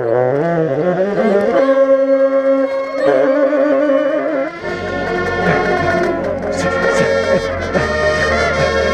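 Marching band playing, with a tenor saxophone close to the microphone. It plays a quick moving line, then holds notes. About four and a half seconds in, the full band comes in, heavier in the low end.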